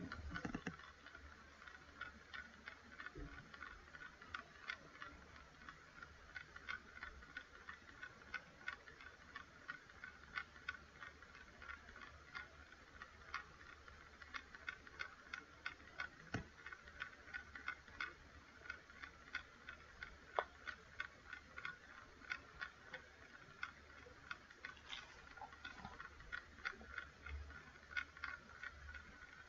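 Faint ticking: short, dry clicks a few times a second at an uneven pace, over a faint steady low hum.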